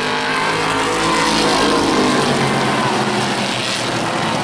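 Several stock car engines running hard as a pack of cars races through the turn of a short oval, a steady, loud engine din with the pitch rising and falling.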